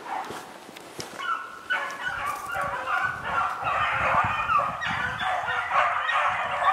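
A pack of beagles in full cry on a jumped swamp rabbit: several hounds baying at once, their voices overlapping. The cry thickens and grows louder from about a second in.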